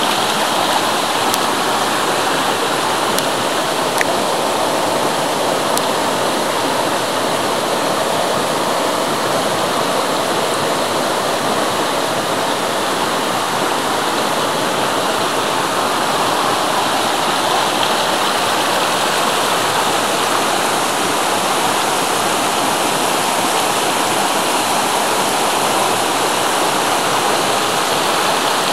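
Shallow rocky stream rushing steadily over stones. A few small clicks stand out in the first six seconds.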